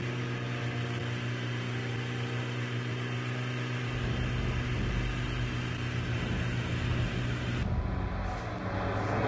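Jeep engine running at a steady pace as it drives, an even hum with no revving. The sound turns duller about three quarters of the way through.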